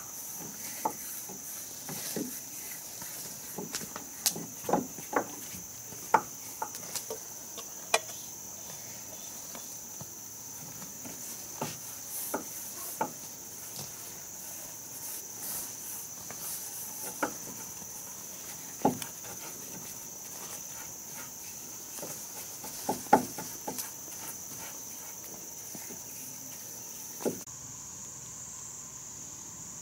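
A steady, high-pitched insect chorus, with irregular light knocks and taps against wooden boards scattered throughout, a few of them sharper.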